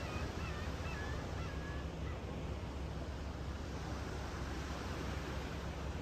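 Calm sea waves washing ashore in a steady, low surf noise, with a bird giving several short calls in the first two seconds.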